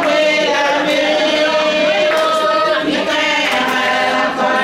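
A group of women singing together in chorus, holding long notes that glide from one pitch to the next.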